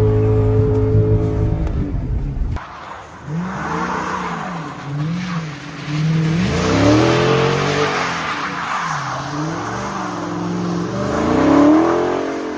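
Car engine revving up and down again and again, with a hiss of tyres spinning on snow as the car slides with traction control off. A steady high engine note cuts off abruptly about two and a half seconds in before the rising and falling revs begin.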